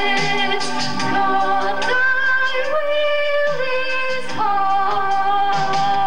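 A woman singing into a handheld microphone, holding long notes and stepping from one pitch to the next.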